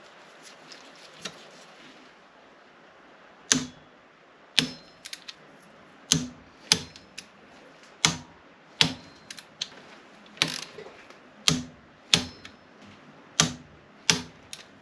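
A socket wrench clicking as it tightens the rocker cover bolts on a Yamaha VX110 engine head. After a quiet first three seconds or so, single sharp metallic clicks come about once a second, some with a brief ring.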